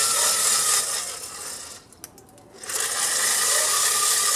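Handheld electric blower running with a faint wavering whine, blowing air onto burning wood to fan a barbecue fire. It winds down about a second in, goes quiet with a few clicks near the middle, and starts up again about two and a half seconds in.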